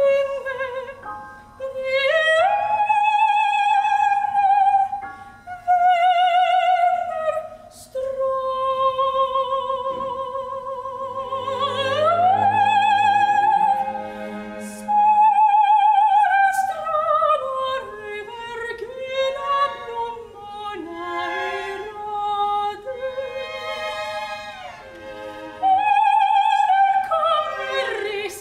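Soprano singing an operatic aria in contemporary chamber opera: long held notes with wide vibrato and sweeping leaps in pitch, phrases broken by short breaths. A low held note sounds underneath around the middle.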